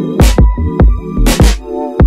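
Electronic dance music with a steady beat: heavy bass-drum thumps, sharp snare hits and held synth notes.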